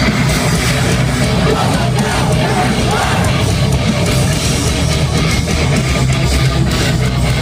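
Heavy metal band playing live and loud through a PA: distorted electric guitars and bass over drums, at a steady full level with no vocals standing out.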